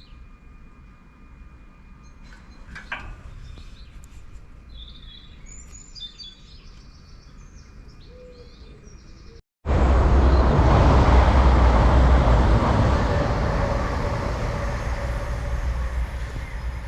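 Birds chirping, then, after an abrupt cut about two-thirds in, a train running through the station without stopping: a loud rumbling noise that slowly fades.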